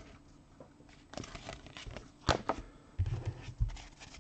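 2016 Topps Premier Gold soccer trading cards being handled and slid through a stack by hand: light rustling and flicking, with a sharper snap about two seconds in and a few dull bumps near the end.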